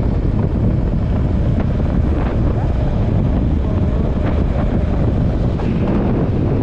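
Heavy wind noise buffeting the microphone on a moving vehicle. It is a steady, loud rush that cuts in abruptly at the start.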